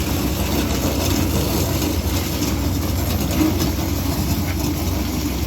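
Mini excavator's diesel engine running steadily at idle, a low, even rumble.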